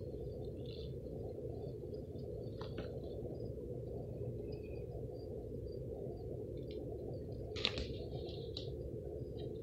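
Steady low rumbling background noise, with faint scattered high chirps and a short sharp rustle or click about eight seconds in.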